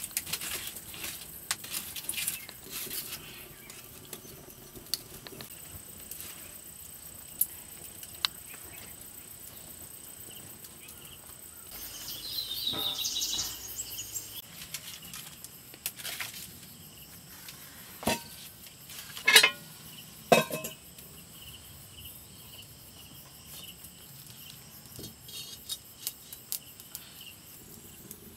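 Wood fire crackling in a mud stove for the first few seconds, then a faint steady insect drone with a short chirping call partway through and three sharp knocks about 18 to 20 seconds in.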